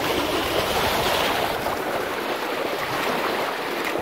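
Wind-driven waves on a reservoir lapping and breaking against the shore in a steady wash, with wind rumbling on the microphone during the first couple of seconds.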